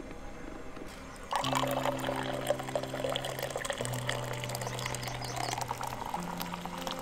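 Coffee poured from an insulated French press into stainless steel tumblers: a steady splashing pour starting about a second in and running on, filling one cup and then the next. Background music with long held low notes plays underneath.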